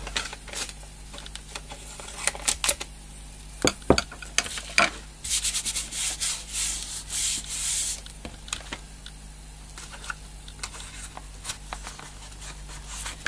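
Hands rubbing and smoothing tape down onto cardboard. There are scattered taps and knocks of the card on the table, and a stretch of steady rubbing about five to eight seconds in.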